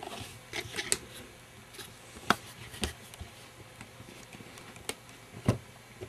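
Handling noise: a quick cluster of light clicks in the first second, then sharper clicks and knocks spaced a second or two apart, the loudest about two and a half seconds in and a heavier knock near the end.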